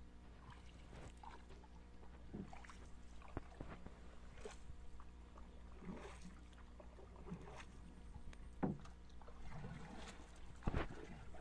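Faint water splashing and sloshing, broken by irregular knocks and clunks, the two loudest coming near the end.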